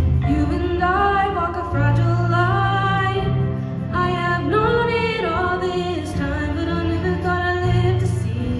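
Middle school show choir singing a song with held, gliding vocal lines over instrumental accompaniment with a sustained bass line.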